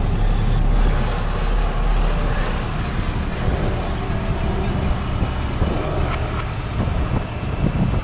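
Diesel engines of farm tractors and a semi-trailer truck running with a steady low drone under load, towing the truck out of deep mud.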